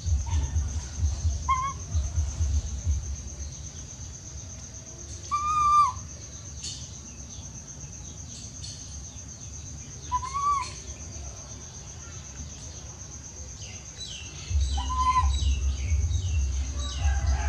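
A baby monkey giving short, high, slightly arched calls, four clear ones spaced a few seconds apart and fainter ones near the end: a young monkey calling for its mother while eating. A steady high-pitched tone runs underneath, and a low rumble fills the start and the last few seconds.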